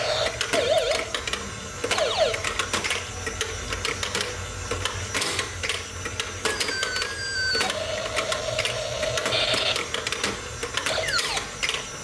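Plastic whack-a-mole toy being played: a plastic hammer clacks repeatedly on the pop-up moles while the toy gives out short electronic chirps, wobbling tones and a couple of falling whistles.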